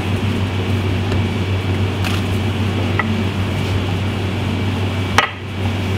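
Pasta dough being worked by hand on a counter, then rolled with a wooden rolling pin: soft squishing and rubbing over a steady low hum. A sharp click comes a little before the end.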